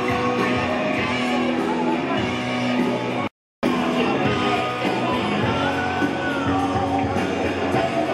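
Loud music with singing, cutting out completely for a split second about three seconds in.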